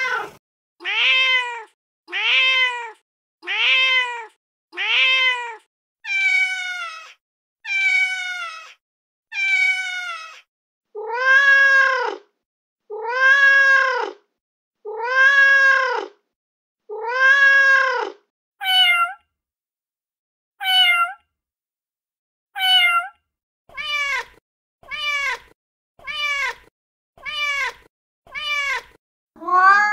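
Recorded domestic cat meows played one clip after another from a cat-sounds app. First a run of short meows about one a second, then sets of longer, arching meows, then shorter, higher ones, each set differing in pitch and length.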